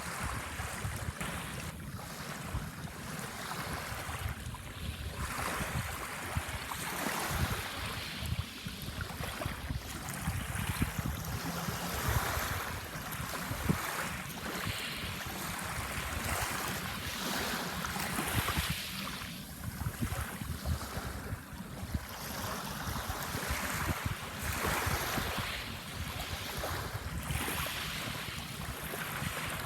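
Sea waves washing onto a sandbar shore, the wash swelling and falling away every few seconds. A low rumble of wind buffets the microphone underneath.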